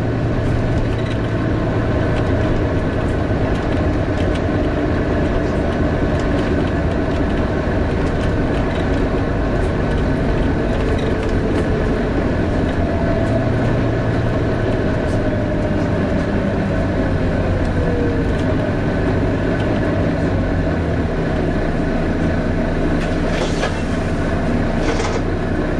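Volvo B9TL double-decker bus heard from inside on the upper deck: the six-cylinder diesel engine running under a steady, vacuum-cleaner-like whine from the engine cooling fan. One tone sinks in pitch about halfway through, and there are two short rattling clicks near the end.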